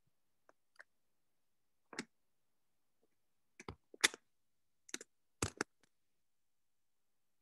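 Irregular clicks and taps of keys being pressed on a keyboard, a few at a time with pauses between, the loudest cluster about four to five and a half seconds in.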